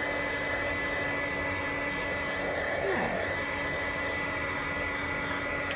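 Handheld electric dryer blowing steadily with a constant whine, drying freshly sprayed ink on a watercolor paper panel. It cuts off at the very end.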